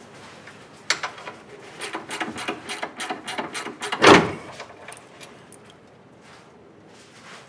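A quick run of clicks and knocks, then one loud thump about four seconds in, followed by a few quieter ticks.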